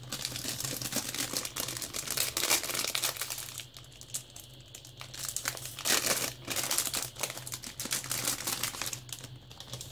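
Thin clear plastic bag crinkling as a portable hard drive is unwrapped and slid out of it: loud crackling for the first few seconds, a quieter moment, then loud again about six seconds in.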